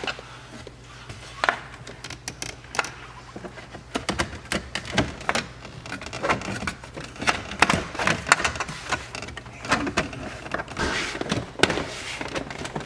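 Plastic door sill trim panel being slid and pressed back into place in a car interior: a string of irregular clicks, taps and knocks, sparse at first and coming thick and fast from about four seconds in.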